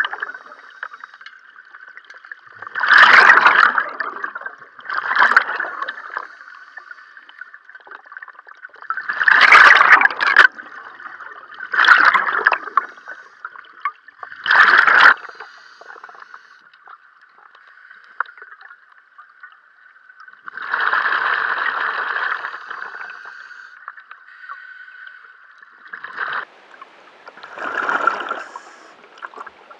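Scuba diver underwater in a flooded cave sump: bursts of exhaled bubbles gurgling out of the regulator every two to three seconds, one longer burst near the middle, over a faint steady hum.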